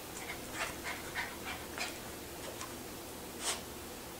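A small dog playing with a cat toy: a quick, irregular series of short scuffs and snuffs, with one louder sound about three and a half seconds in.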